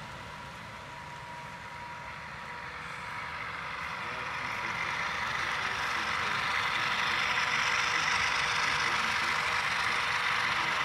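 HO scale model diesel locomotive running on the layout, its sound swelling over the first half as it draws near, then holding steady.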